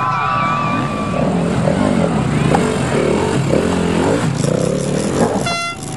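Enduro motorcycle engine revving up and down as the bike picks its way over the obstacles.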